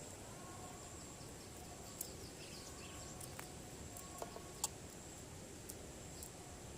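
Faint rural outdoor ambience: a steady high insect tone, a few faint bird chirps and several sharp clicks, the loudest of them about four and a half seconds in.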